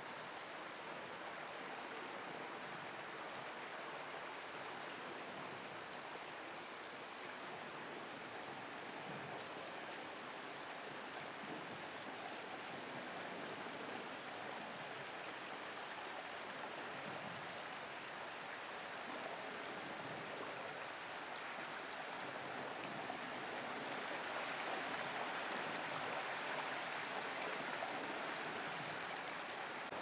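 Steady rush of water running over rocks in a canyon stream, growing a little louder in the last few seconds.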